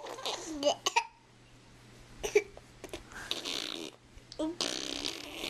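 A small child making funny vocal noises: short squeals and sputtering, breathy mouth sounds like blowing raspberries.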